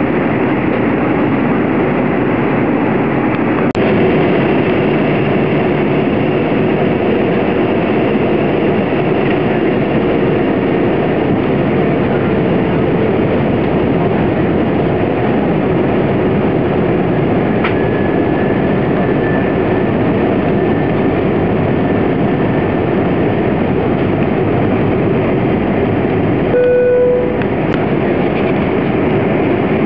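Steady cabin noise of a jetBlue Airbus A320 in flight, heard just ahead of the right engine: an even rush from its IAE V2500 turbofan and the airflow. A brief tone sounds near the end.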